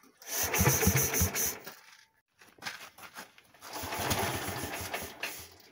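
Bucher single-axle tractor's air-cooled engine being rope-started twice: each pull turns it over briefly, and it dies away again without catching.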